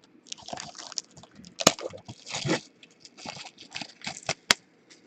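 Trading card pack wrappers and packaging crinkling and crackling in the hands as packs are handled and opened, with two sharp clicks, one about a second and a half in and one near the end.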